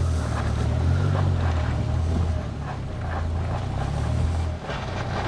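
Ute engine running at low revs while towing a car slowly on a tow rope, a steady low hum that eases briefly about four and a half seconds in.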